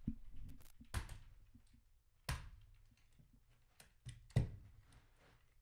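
Scattered knocks, thumps and clicks of someone moving about and handling objects, about half a dozen spread over a few seconds, the loudest a little past four seconds in.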